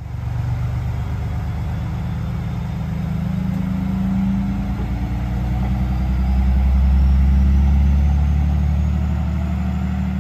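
Diesel engine of a JR West KiHa 120 railcar running as it pulls away from the platform: a steady low drone that grows louder through the middle and eases slightly near the end.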